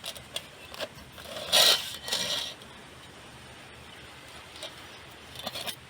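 Handling noises: scattered clicks and two louder scraping rustles about a second and a half and two seconds in, then a few small clicks near the end.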